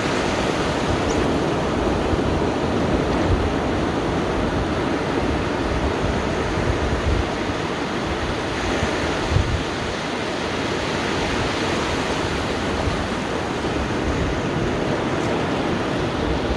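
Sea surf washing steadily onto a sandy beach, a continuous rush of breaking waves, with low gusts of wind buffeting the microphone.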